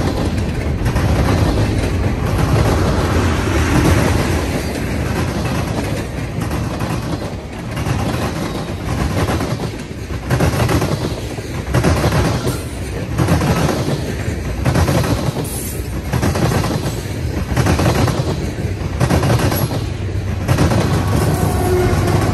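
Freight train of tank cars and covered hoppers rolling past close by: a steady rumble of steel wheels on rail, with wheelsets clacking over rail joints in a regular rhythm about once a second. Near the end a steady tone comes in as a mid-train diesel locomotive draws level.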